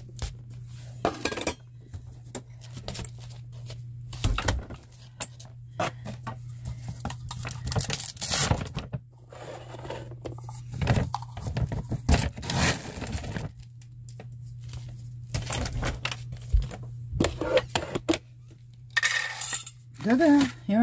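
Cat food dishes and a spoon being handled while cats are fed: an irregular run of clinks, knocks and scrapes over a steady low hum.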